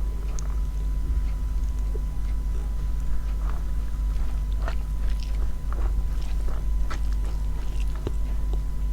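A person eating close to the microphone: chewing with scattered soft mouth and food clicks, over a steady low hum.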